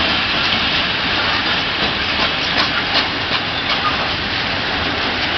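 Freight train of open wagons loaded with logs rolling past close by: a steady rush and rumble of steel wheels on the rails, with a few faint clicks about halfway through.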